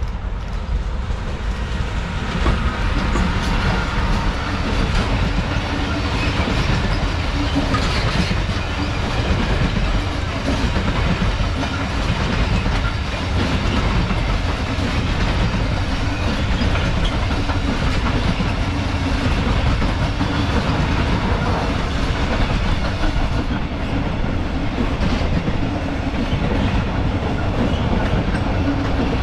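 A freight train running past, wagons rolling steadily on the rails for the whole stretch.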